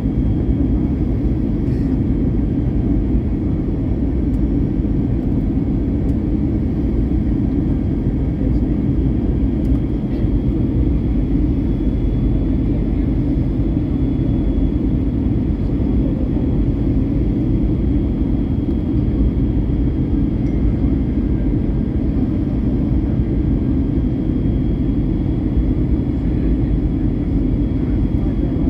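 Steady cabin noise inside an Airbus A321 airliner in flight, descending low over the ground: a constant low rumble of engines and airflow with a faint, steady high whine above it.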